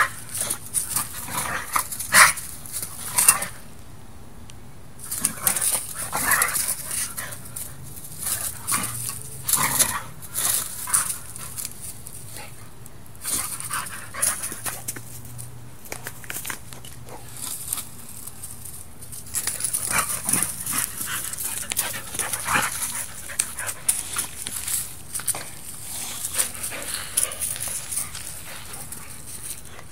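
Two boxer dogs playing rough: heavy panting in irregular bursts, with occasional whines and short barks.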